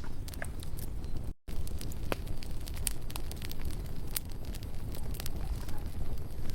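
Wood campfire burning, with irregular crackles and sharp pops over a low steady rumble. The sound cuts out completely for a moment about a second and a half in.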